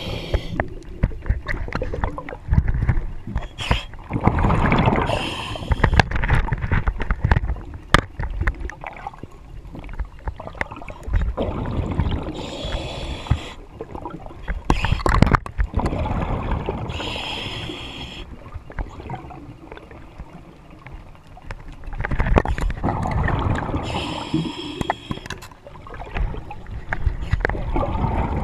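Underwater breathing of a diver on a surface-supplied hookah air line: a hiss on each breath in and a rumbling gurgle of exhaled bubbles, repeating every few seconds. Many sharp clicks and knocks run underneath.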